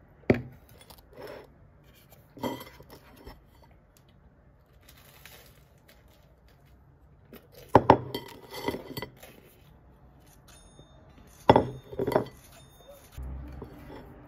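Glass mug and ceramic plate being handled on a desk: a sharp knock just after the start, a few lighter clinks, then pairs of louder knocks around eight and twelve seconds in, some leaving a short glassy ring.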